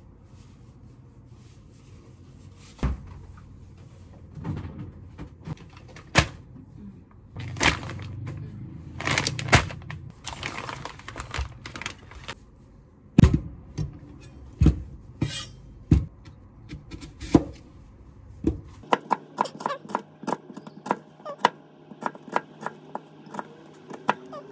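Kitchen handling sounds: knocks as things are set down on the counter, and a plastic food packet rustling. About three-quarters of the way in, a knife starts chopping an onion on a plastic cutting board, with quick, regular taps of the blade on the board.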